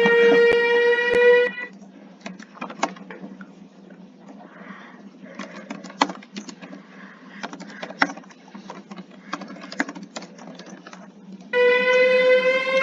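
Warning siren holding a steady wail that cuts off abruptly about a second and a half in, followed by several seconds of faint background noise with scattered clicks and knocks. Near the end the siren starts again, its tone slowly rising.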